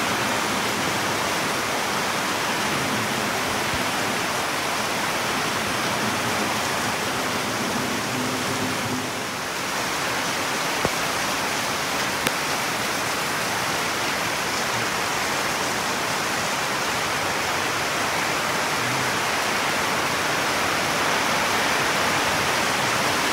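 Heavy rain with water pouring off a roof gutter in a stream onto the ground, a steady rushing hiss. The gutter is overflowing, and the owner thinks it is leaking.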